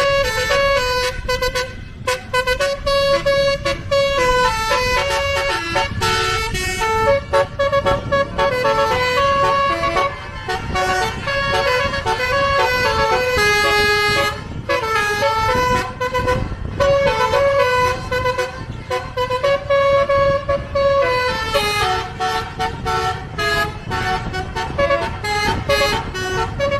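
Indonesian bus 'basuri' telolet musical air horn playing a tune of held notes that step up and down in pitch, over a low rumble.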